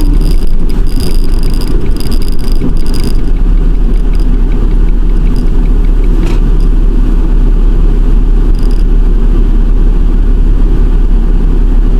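Ford Transit van running on the road, heard from inside the cab as a steady low engine and road rumble.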